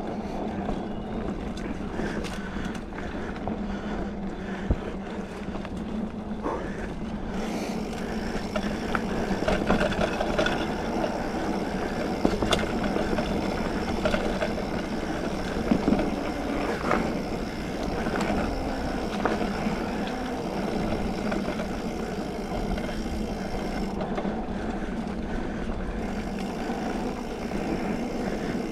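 Mountain bike, a Specialized Fuse 27.5+, rolling along a dirt trail: steady rumble of tyres and wind on the microphone, with scattered sharp rattles and knocks from the bike.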